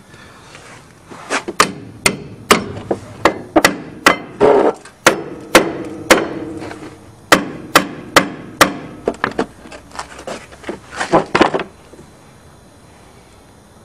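Hammer blows on a socket and extension bar, driving a new ball joint into a stamped sheet-metal control arm: about twenty sharp metallic strikes, roughly two a second with a short pause midway, each with a brief ring. The strikes stop about twelve seconds in, with the joint pressed home.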